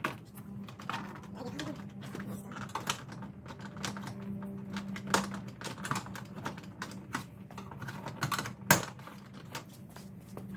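Irregular light clicks and plastic rattles from handling a car's interior door panel and its trim pieces, with one sharper click about eight and a half seconds in.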